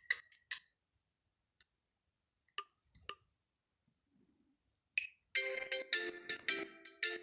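Alcatel Pixi 3 (4) ringtones played through the phone's speaker. A fast, ticking tune cuts off about half a second in, a few faint clicks follow, and about five seconds in another ringtone starts: a quick tune of struck, marimba-like notes.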